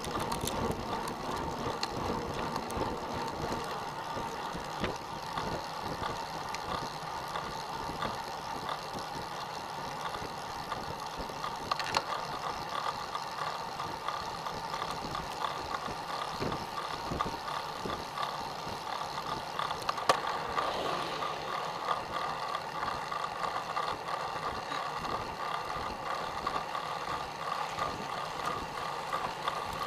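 A road bicycle rolling on asphalt: steady tyre and wind noise with light mechanical rattling and clicking, and a couple of sharper clicks.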